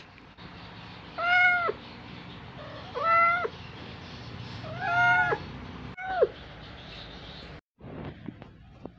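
Domestic cat meowing four times, each call about half a second long and dropping in pitch at its end, the last one shorter.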